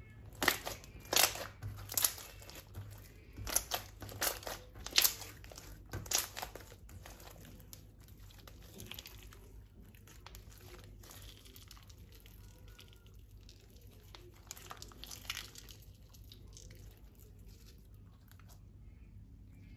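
Slime being squeezed and stretched by hand, crackling with a quick run of sharp snapping pops in the first several seconds, then settling into a softer, steady crackle.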